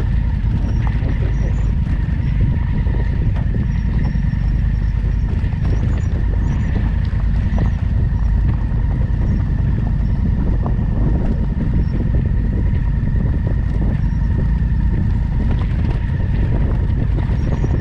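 Twin-cylinder adventure motorcycle running steadily on the move, a continuous low rumble with a faint steady whine above it.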